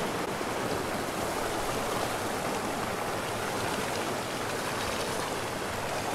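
Steady rush of a rocky river flowing over boulders and small rapids.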